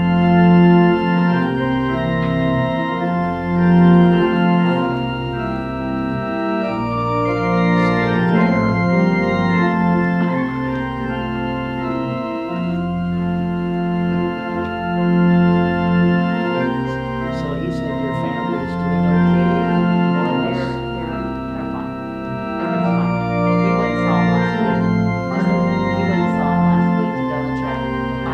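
Church organ playing slow, held chords over a low bass line: the postlude at the close of the service.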